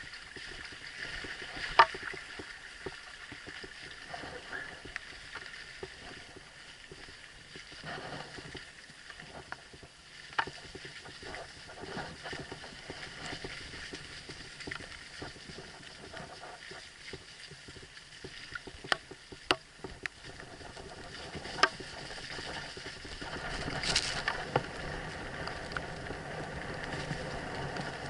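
Mountain bike riding over a rough, muddy forest track: a steady rush of tyre noise, broken by sharp clacks and knocks as the bike jolts over ruts. The loudest comes about two seconds in, a cluster comes around twenty seconds, and the rush grows louder over the last few seconds.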